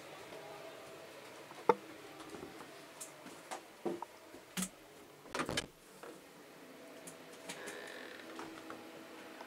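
Inside a passenger train carriage: a faint steady hum broken by a series of sharp clicks and knocks, the loudest a single click a little under two seconds in, with a quick cluster of knocks past the middle.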